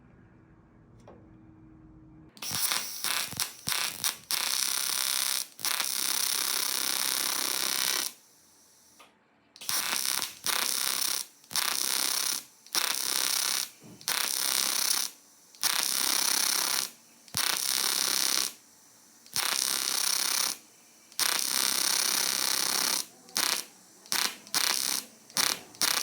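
TIG welding arc buzzing on air-conditioner tubes. It starts about two seconds in, runs steadily for about six seconds, then is struck and stopped over and over in bursts of about a second with short breaks, the last few shorter.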